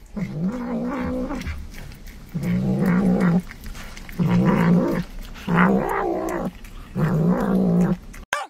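Cat giving five long, low, wavering growling yowls, about a second each, with its teeth in a hanging piece of meat: the growl of a cat guarding food.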